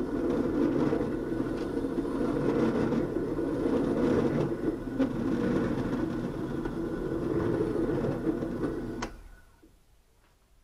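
Benchtop drill press running with a steady motor hum. About nine seconds in there is a sharp click and the running stops quickly.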